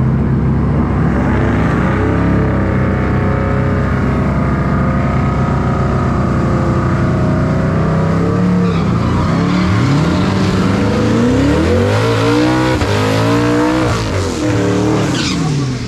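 On3 twin-turbo Ford Coyote V8 in a stick-shift street car, running at steady revs for about eight seconds, then accelerating hard down the strip. Its pitch climbs and drops back at each gear change, and the revs fall near the end as it lifts.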